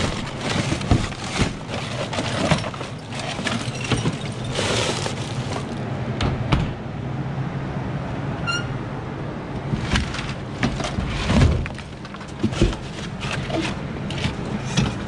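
Pieces of scrap aluminium and extruded alloy clattering and knocking as they are rummaged through in a metal bin: irregular knocks and rattles, the loudest about eleven seconds in. A brief ringing note sounds about halfway.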